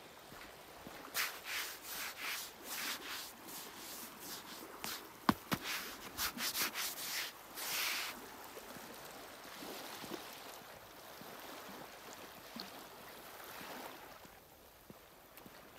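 Small waves lapping and splashing at the edge of a partially frozen lake: a quick run of short swishes in the first half, with one sharp click about five seconds in, then a softer wash of water.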